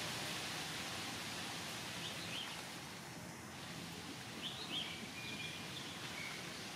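Outdoor ambience: a steady hiss, with a few faint, short high chirps.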